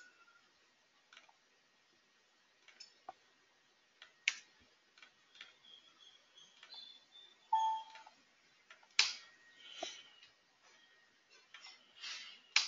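Irregular clicks from a computer mouse and keyboard, about ten spread unevenly, as SAP screens are navigated. A brief faint tone sounds just before the middle.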